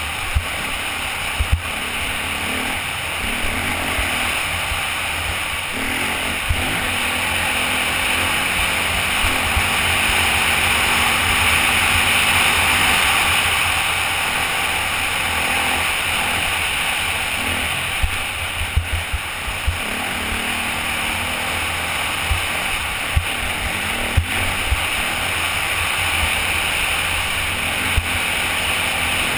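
Off-road motorcycle riding at speed on a dirt trail, heard from a helmet-mounted camera: the engine runs steadily under a constant rushing noise, with occasional short thumps. It grows a little louder toward the middle, then eases.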